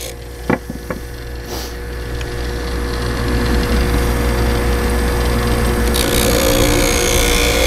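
Harbor Freight 6-inch bench buffer running with hard DuroFelt wheels, its motor humming steadily. Green polishing compound is rubbed onto the spinning felt, then a knife edge is pressed against the wheel. The edge gives a rubbing hiss that grows louder over the last two seconds as the blade is stropped to a polish.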